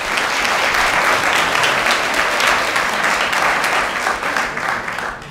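Audience applause, a steady clapping from many hands that dies away near the end.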